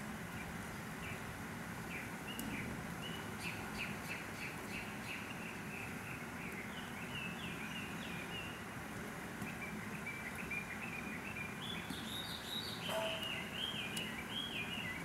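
A small songbird chirping in long runs of quick, high notes, which grow louder near the end, over a steady background hiss.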